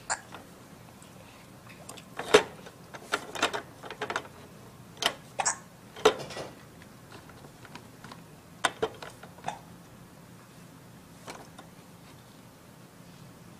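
Plastic toys on an Evenflo Exersaucer Jump & Learn activity centre clacking and rattling as a baby plays with them: about a dozen short, irregular knocks, bunched in the first half.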